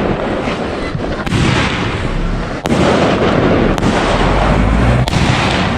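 Fireworks going off in a dense, continuous barrage of crackling and booms, with four sharper bangs standing out.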